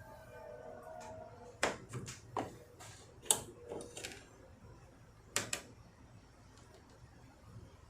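Sharp clicks and light knocks, about eight in irregular clusters, from hands working at a car's headlight housing while the bulbs are swapped.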